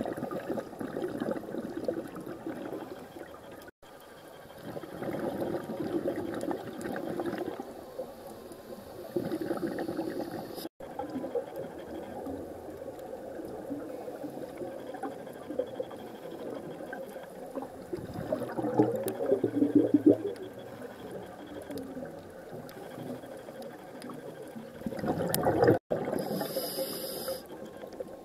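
Muffled underwater water noise picked up by a camera in a waterproof housing: rushing and bubbling that swells and falls, louder for a couple of seconds past the middle, broken by three sudden short dropouts.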